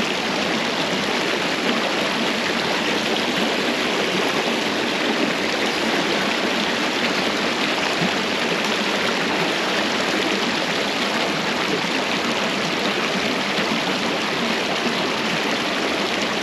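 Small trout creek flowing, a steady, even rush of water.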